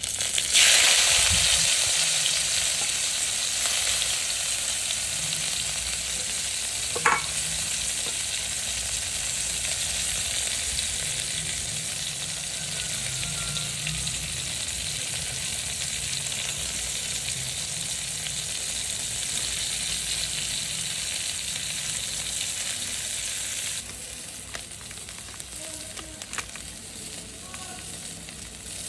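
Green chillies dropped into hot oil in a metal kadai, sizzling at once and then frying with a steady hiss. A single sharp click about seven seconds in, and the sizzle turns quieter for the last few seconds.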